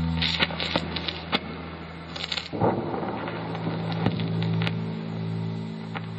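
Dark ambient industrial drone music: low held droning tones under a haze of hiss and crackle, with scattered clicks. About two and a half seconds in, the drone shifts to a new set of low tones.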